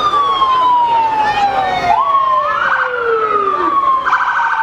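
Emergency vehicle sirens sounding together: one wail slides slowly down in pitch, a second wail falls faster about two seconds in, and short rapid warbling bursts cut in around two seconds and again near the end.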